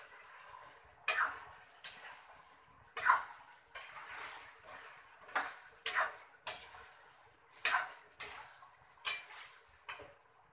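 A cooking utensil scraping and clanking against a frying pan as chicken and potatoes are stirred and turned: a dozen or so irregular strokes, over a faint steady sizzle from the pan.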